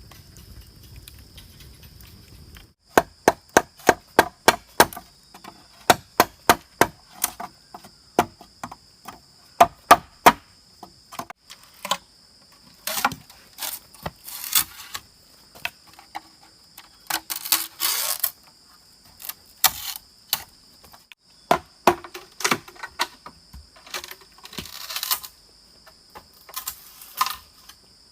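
Chopping wood with a blade: sharp strikes, about three a second from about three seconds in, then more irregular. A steady high insect drone runs underneath.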